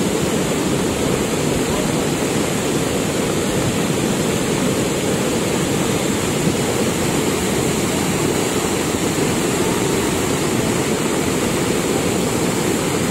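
Cold lahar (volcanic mudflow) from Semeru in full flood: a loud, steady rush of fast, muddy water churning down the river channel as its discharge rises.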